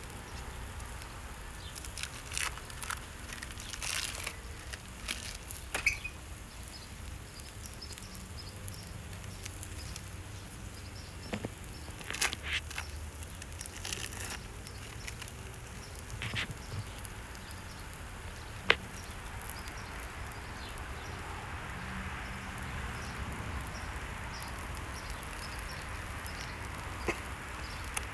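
Quiet outdoor background with a steady low rumble, scattered small clicks and rustles of hands handling food packaging, including plastic wrap being peeled off cheese slices, and one sharp click about two-thirds through.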